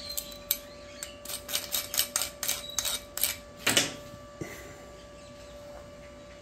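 A quick run of sharp metal-on-metal taps and clicks, about four a second: steel pliers knocking against a freshly welded steel angle. A louder clatter near the four-second mark ends the run.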